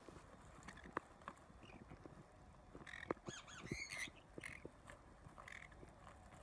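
A bird calls in a quick run of short, high, bending chirps about three to four seconds in, with a few single chirps before and after. Faint scattered clicks and taps run throughout.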